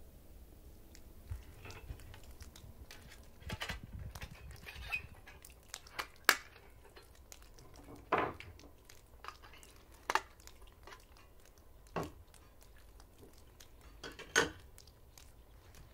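Scattered clinks and knocks of metal camp-stove and cookware parts being handled on a wooden deck, with the sharpest knocks coming about every two seconds in the second half.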